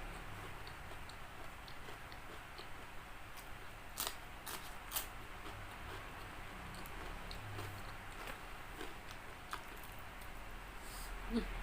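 Chewing and biting into crispy fried chicken, close to the microphone, with soft scattered crackles and three sharper crunches about four to five seconds in.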